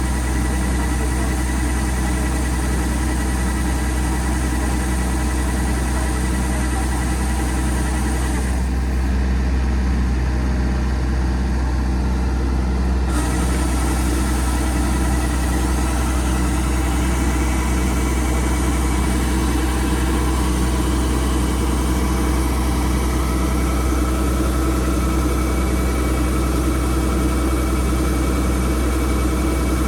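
An engine running steadily at a constant speed, with a strong low hum.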